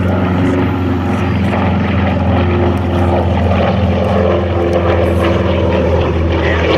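Twin-radial-engine Lockheed C-60A Lodestar flying past, its two Wright R-1820 Cyclone engines and propellers making a steady, deep droning hum.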